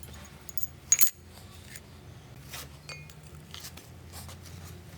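Metal parts clinking against each other: one sharp, ringing clink about a second in, then lighter clicks and taps over a low steady hum.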